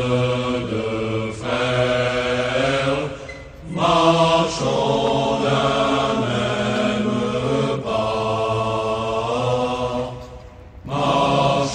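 Slow, solemn chanted singing in low voices, long notes held in drawn-out phrases, with two short breaths between phrases, about three and a half seconds and ten and a half seconds in.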